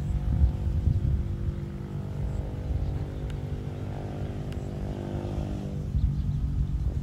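A small engine drones steadily at one pitch, then fades away about six seconds in, over a rumble of wind on the microphone.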